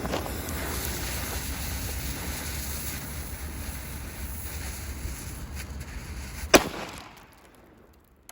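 A single sharp, loud bang from a small explosion about six and a half seconds in, over a steady rushing hiss and low rumble that fades away soon after.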